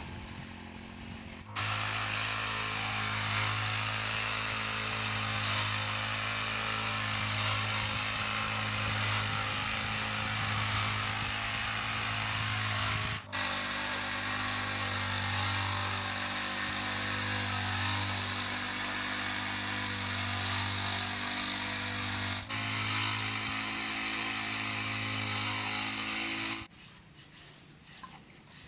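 A construction machine's engine running steadily at a constant pitch, with a low, slightly pulsing tone. It breaks off for an instant twice and stops shortly before the end.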